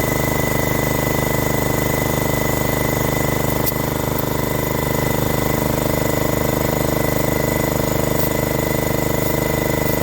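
Air compressor running steadily with an even mechanical drone while inflating a plugged tire to about 40–45 psi.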